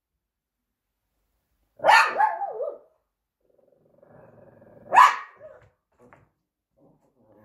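Small dog barking twice, about three seconds apart; the first bark trails off in a wavering tail, the second is short and sharp.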